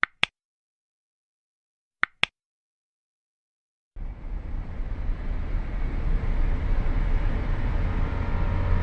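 Two double clicks, about two seconds apart, from a mouse-click sound effect on a subscribe-button animation. About four seconds in, a steady low noise starts suddenly, with faint steady tones creeping in near the end.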